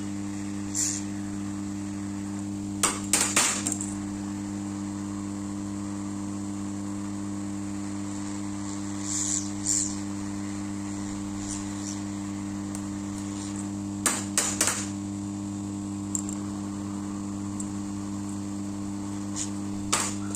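Steady electrical hum of a hot air rework gun's blower running at full, with scattered sharp metallic clicks and clinks from tools handling the circuit board.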